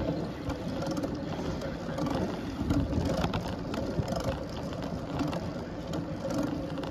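Bicycle riding on a paved road: a steady rush of wind and tyre noise, with scattered mechanical ticking and rattling from the bike.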